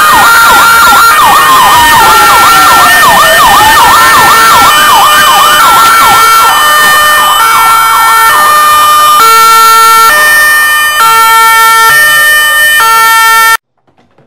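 Several emergency-vehicle sirens sound at once, very loud. A fast yelp sweeps up and down repeatedly, and one slow wail falls about two to three seconds in. From about six seconds on, a steady hi-lo two-tone takes over. The sound cuts off abruptly near the end.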